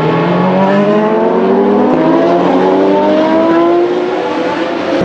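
Historic racing car engine accelerating, its pitch climbing steadily for about four seconds, over another engine holding a steady note.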